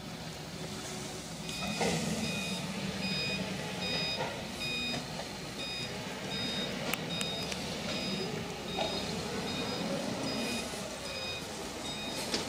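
A vehicle's reversing alarm beeping at a steady, even pace, starting about a second and a half in, over the low running of an engine.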